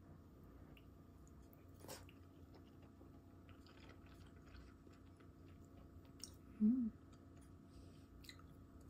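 Soft chewing of ramen noodles, with a few light clicks of wooden chopsticks and a spoon against a ceramic bowl. About two-thirds of the way in comes one short hummed "mm", the loudest sound.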